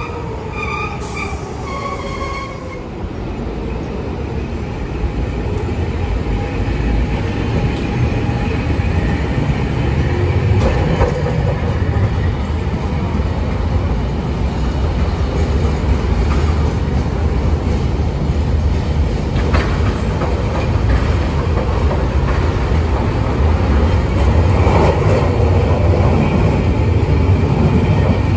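Hiroshima Electric Railway streetcar running on street-embedded rails, a low rumble of wheels and running gear that grows steadily louder as the tram comes up to the stop and passes close by.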